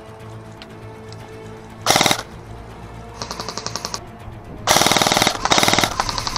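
Airsoft electric guns firing short full-auto bursts, each a rapid run of evenly spaced clicks: one loud burst about two seconds in, fainter bursts a second or so later, and two loud bursts close together near five seconds.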